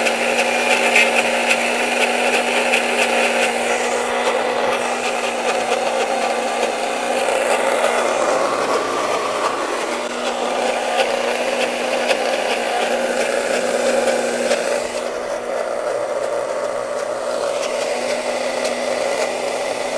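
Countertop blender running continuously at speed: a steady motor hum under the churning of liquid in the jar. Loud enough that a bystander took it for a vacuum cleaner.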